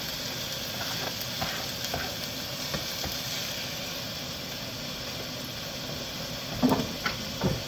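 Green pepper and minced garlic sizzling in olive oil in a pot, a steady hiss. Two short knocks near the end.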